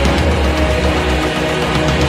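Loud background music: a dense, driving track with heavy bass and sustained pitched tones, in an aggressive, metal-like style.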